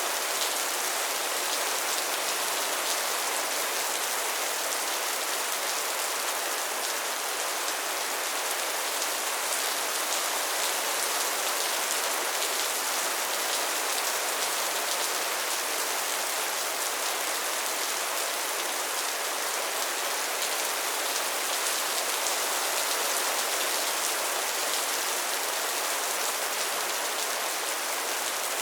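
Steady rainfall: a dense, even patter of drops making a constant hiss weighted to the high end, with little low rumble.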